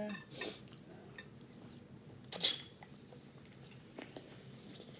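A person eating corn on the cob close to the microphone: faint mouth clicks, with one short, loud, crisp bite about two and a half seconds in.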